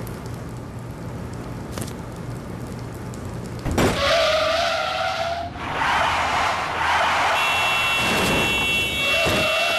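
Car tyres screeching in a hard skid, with a low hum before it. A loud squeal starts about four seconds in and another comes near the end; steady high-pitched tones join after about seven seconds.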